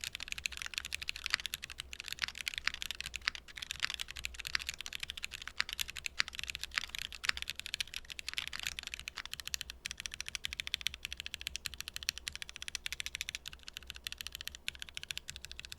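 Continuous fast typing on a gasket-mounted Vertex Angle TKL mechanical keyboard with an aluminium plate and C3 Equalz Tangerine 67 g linear switches: a dense, steady stream of key strokes that stops abruptly at the end.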